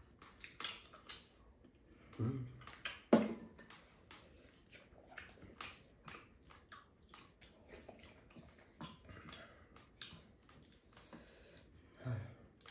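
Two people eating a meal: chewing and mouth sounds with metal spoons and chopsticks clicking against ceramic bowls, many small ticks throughout. A sharp knock a little after three seconds is the loudest sound, and brief low murmurs come about two seconds in and near the end.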